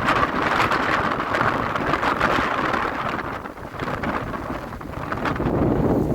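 Floodwater rushing in a swollen mountain river: a loud, steady rush of noise with a low rumble beneath, easing slightly midway.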